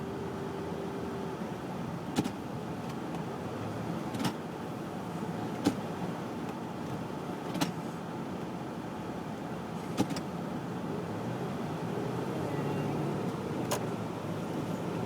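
A car running through deep snow, heard from inside the cabin: a steady engine and road rumble that grows louder near the end, with a sharp click every couple of seconds.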